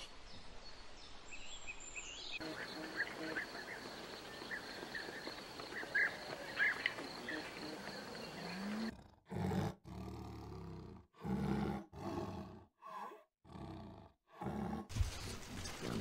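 Outdoor background with small bird-like chirps and a steady high hum, then a run of about six loud, roar-like wild-animal calls, each one cut off abruptly as separate recordings are spliced together.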